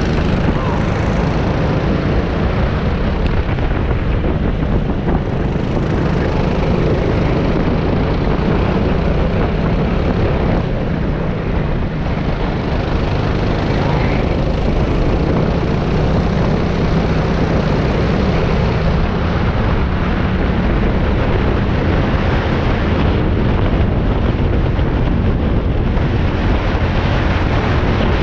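Racing kart engine running hard, heard from onboard the kart, with the engine note shifting slightly as the kart goes through the corners and wind noise on the microphone.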